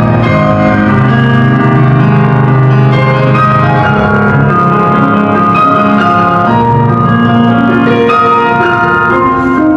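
Live instrumental music led by piano or keyboard, with held notes and no singing heard, recorded from the audience with somewhat unclear sound.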